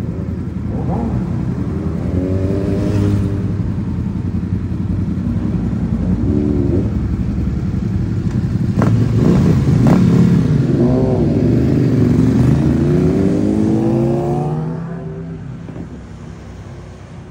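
Motorcycle engines running and revving as the bikes pull away. There are several short rising revs and a few sharp cracks about nine seconds in, then a long climbing rev before the sound fades off near the end.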